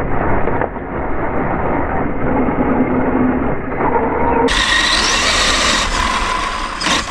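Remote-control car running with a camera mounted on it: a steady rumble of motor and wheels with whining tones. About four and a half seconds in the sound changes abruptly and becomes brighter.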